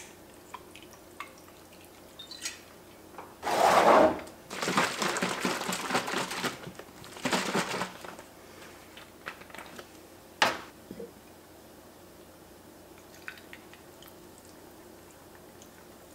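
Liquid sloshing in a bottle of grapefruit drink as it is shaken, in a few loud bursts over about four seconds, followed by a single sharp click. Small clinks of ice in a glass come before and after.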